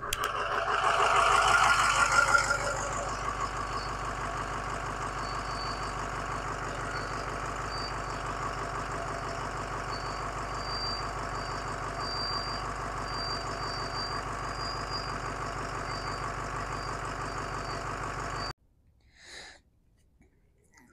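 Navistar VT365 6.0-litre V8 turbodiesel running just after starting: a little louder for the first few seconds, then a steady idle with a faint high whine. It has fired readily on the new glow plug relay. The sound cuts off a couple of seconds before the end.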